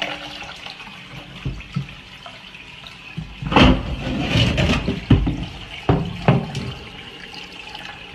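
Toilet flushing with water rushing and running, and several louder sudden sounds between about three and a half and six and a half seconds in.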